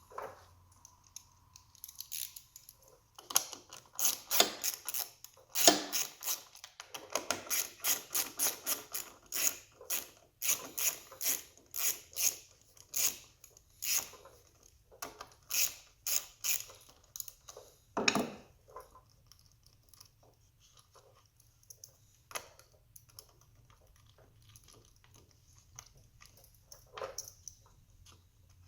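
Hand socket ratchet clicking in quick runs of strokes, loosening bolts on a small lawn mower engine, then scattered clicks and taps of tools and parts toward the end.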